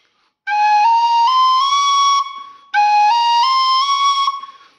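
Wooden Thai khlui (vertical duct flute) played in two short rising scale runs of about five notes each, the second a repeat of the first.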